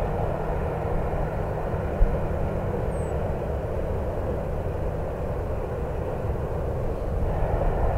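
Boeing 737-700's CFM56 jet engines at taxi idle, a steady rumble and hum as the airliner rolls slowly past. A brief thump about two seconds in.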